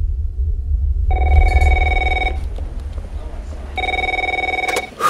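Desk telephone ringing twice, each ring a trilling electronic tone a little over a second long, over a steady low rumble. A short clack comes near the end as the ringing stops.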